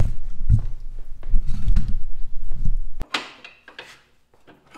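The 1942 Silver King Model 41 tractor's four-cylinder engine being cranked over, a heavy low rumble with uneven thuds about twice a second, hard to crank after its stuck valves were freed. It stops abruptly about three seconds in, leaving only faint metallic clicks.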